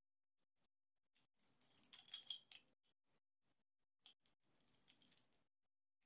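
Small stainless steel folding multi-tool handled in the fingers: light metallic clinks and rattling of its folding pliers and parts, in two short bursts about two seconds in and again around five seconds.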